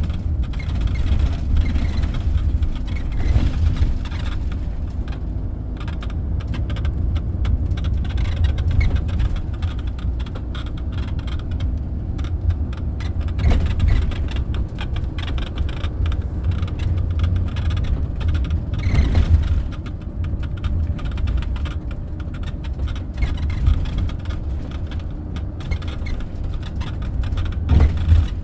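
Carthago motorhome on the move: a steady low driving rumble with rattles and squeaks from the vehicle's body, a few squeaks standing out now and then.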